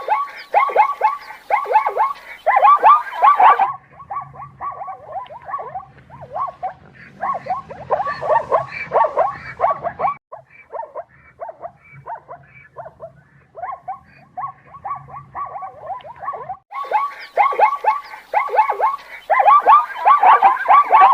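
Zebras barking: rapid series of short, high yelping calls, several a second, from a few spliced recordings that change abruptly about 4, 10 and 17 seconds in.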